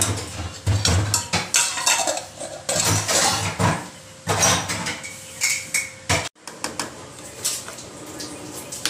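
A steel ladle clinking and scraping against a stainless steel pot as liquid is stirred, with the clank of a steel lid set on the pot and the ladle laid on it. After a sudden break, softer stirring clinks in a larger pan.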